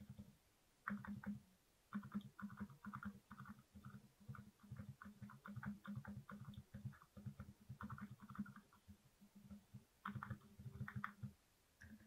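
Typing on a tape-modded Glorious GMMK Pro mechanical keyboard with Alpaca Silent switches and MT3 keycaps: a quiet, fast run of keystrokes, each a low thud with a light click on top, broken by short pauses between flurries.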